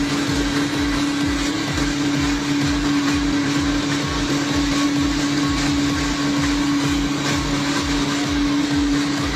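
Brick-making machine running steadily: a constant motor hum with a regular, fast low pulsing under it.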